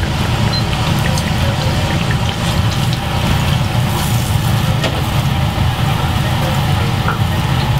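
Hot oil in a deep fryer sizzling and bubbling steadily around a large breaded chicken cutlet, with a continuous low rumble underneath.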